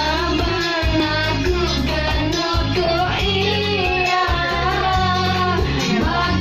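Karaoke: a voice singing a melody over a recorded backing track with a steady bass line.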